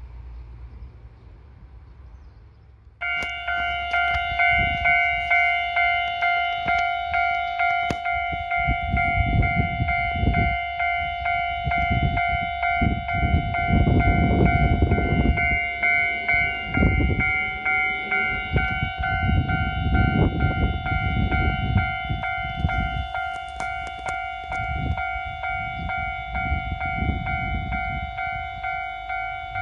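Japanese level-crossing alarm starting abruptly about three seconds in and ringing on in quick, even, bell-like strokes, with low rumbling beneath it from a Kotoden electric train near the crossing.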